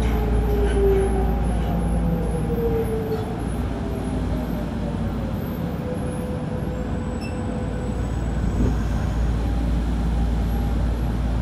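Mitsubishi GTO-thyristor VVVF inverter and traction motors of a Nagoya subway 5050 series train, heard from inside the car over a deep rumble of wheels on rail, as the train slows into a station. The inverter's tones glide down in pitch as the train slows, and the loudness dips in the middle before levelling off.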